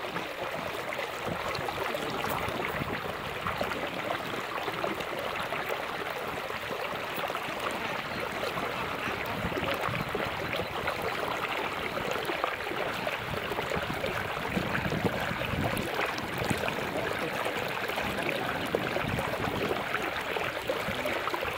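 Steady trickling and splashing of water streaming off a fishing net as it is hauled up out of shallow floodwater.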